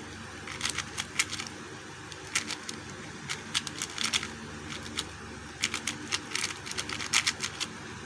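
QiYi QiYuan 4x4 speedcube being turned quickly by hand, its plastic layers clacking in rapid, irregular bursts of clicks.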